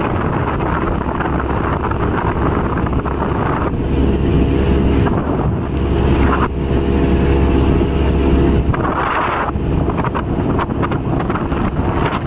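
Jet boat running at speed across a lake: a steady engine drone under heavy wind buffeting the microphone and water rushing past the hull. The engine tone comes through more clearly in the middle stretch.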